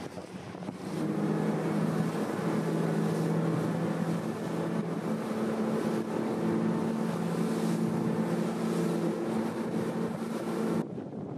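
Motorboat engine running at speed, a steady multi-tone drone over wind and water hiss; it comes in about a second in, shifts pitch slightly about halfway, and cuts off suddenly near the end.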